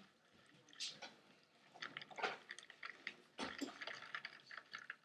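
Milk pouring from a plastic jug onto a paper bowl of ring-shaped oat cereal: a faint, uneven trickling and splashing.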